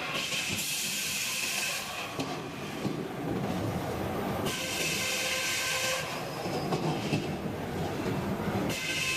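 Power saw blade cutting through oak boards, screeching in three passes of about a second and a half each, with steady machine running between cuts.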